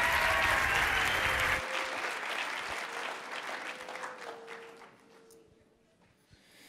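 Audience applauding with some cheering, the applause dying away over about five seconds.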